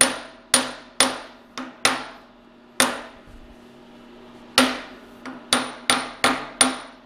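Copper hammer tapping steel milling-vise jaws down in the vise, a dozen sharp metallic strikes that each ring briefly: about six spaced taps, a pause of over a second, then a quicker run of about six. The tapping seats the jaws so they sit dead flush.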